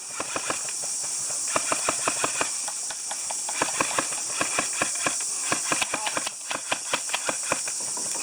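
Scattered hand clapping from a small group: irregular sharp claps in clusters, over a steady high-pitched hiss.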